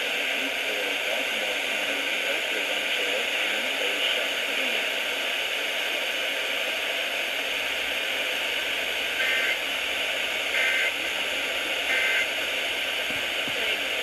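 Midland weather radio on FM giving a steady static hiss, with three short beeps about a second and a half apart near the end as its keys are pressed.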